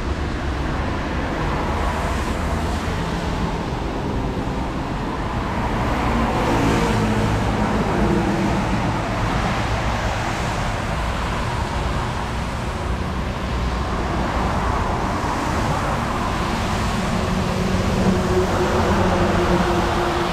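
Road traffic passing on a wet road: tyre hiss and engine hum that swell as vehicles go by, with a heavy truck's engine near the end.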